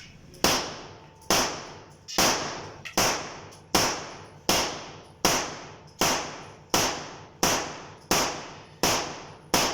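A 9 mm Beretta pistol test-fired in steady semi-automatic fire, about a dozen shots roughly 0.8 s apart, each shot trailing off in an echo.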